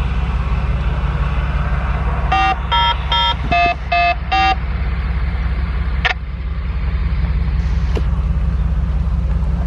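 Dispatch tone-out paging tones over a radio: a quick run of six short beeps at changing pitches, lasting about two seconds, the kind sent to activate sirens or alert a fire department. Under them runs the steady low hum of a vehicle engine idling.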